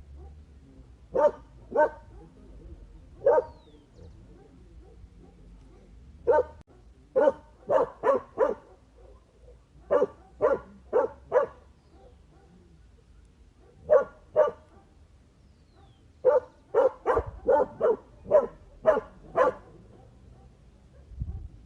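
A dog barking: about twenty short, sharp barks in irregular runs of two to six, with pauses of a second or two between the runs.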